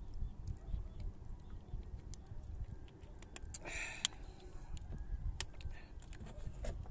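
A plastic water bottle is handled after a drink, giving a brief crinkle and a sharp click a little past halfway. Under it is a low, uneven rumble and scattered small clicks.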